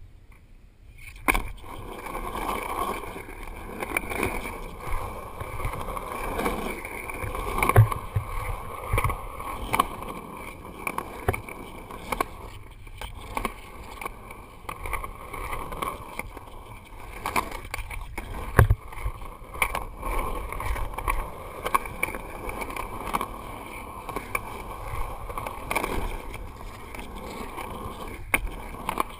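Skateboard wheels rolling over concrete, heard close up from a camera on the board: a steady rolling rumble that swells and eases, with two sharp clacks, one about a quarter of the way in and one past halfway.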